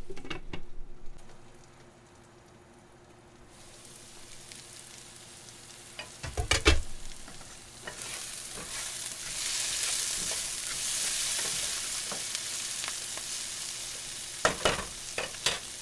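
Squash and peppers frying in a skillet, the sizzle quiet at first and getting louder about eight seconds in. There are sharp knocks against the pan about six seconds in and near the end.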